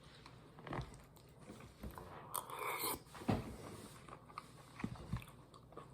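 Quiet scattered clicks and taps with a brief rustle about two and a half seconds in, followed by a sharper knock.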